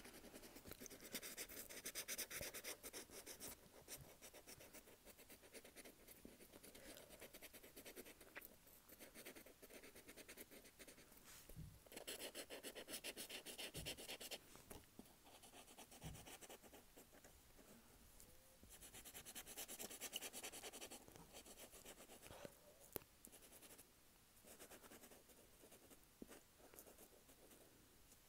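Light blue felt-tip marker rubbing and scratching across paper as an area is coloured in, in faint strokes that come and go, with a few light taps.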